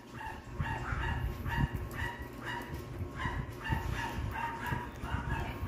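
A small dog barking or yipping over and over, about two short calls a second, over a low rumble.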